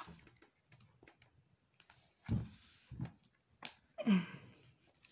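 Soft handling noises as monofilament fishing line is pulled tight into a knot on a tabletop: a few short rubbing rustles and a small click.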